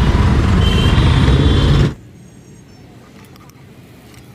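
Loud road traffic noise with engines running, which cuts off suddenly about two seconds in, leaving a much quieter background with a few faint clicks.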